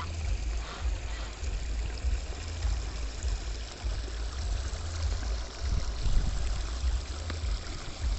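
Shallow water trickling steadily over muddy ground, under a low rumble that rises and falls.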